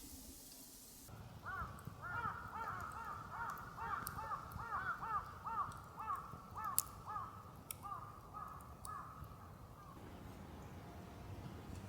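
Birds calling: a fast run of short, arched calls, several overlapping, starting about a second in and stopping near the end. A few faint sharp ticks sound among them.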